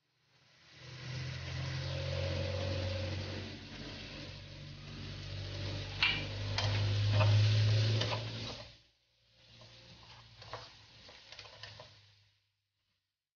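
Pea shoots and prawns sizzling as they stir-fry in a non-stick pan, over a steady low hum. Sharp clinks of a utensil against the pan come between about six and eight seconds in and again towards the end. The sound cuts out briefly near nine seconds in.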